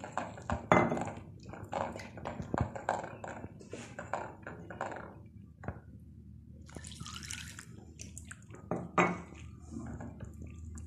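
Wire whisk stirring gram flour in a glass bowl, clicking and scraping irregularly against the glass, while water is poured in a little at a time and worked into the flour.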